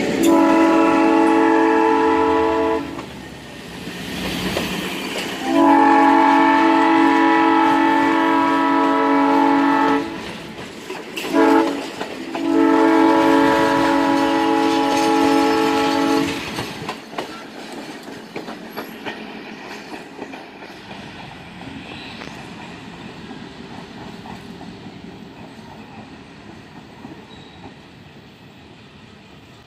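Diesel locomotive's air horn sounding the grade-crossing signal, long, long, short, long, as a Wabash-painted streamlined cab-unit locomotive pulls its passenger train past. Then the passenger cars roll by with wheels clicking over the rail joints, fading as the train moves away.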